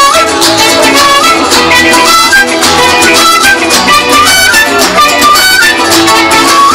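Live band playing an instrumental break: a small wooden flute carries a stepping melody over strummed acoustic guitars and a steady beat.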